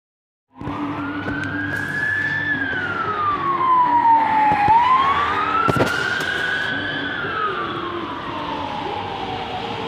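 Police van siren on a slow wail, rising and falling about twice over traffic noise. It starts abruptly about half a second in, and there is a single sharp click near the middle.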